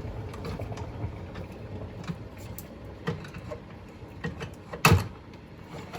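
Small plastic clicks and knocks as a K-cup pod is loaded into a Keurig coffee brewer, with a loud clunk about five seconds in as the brewer's lid is shut.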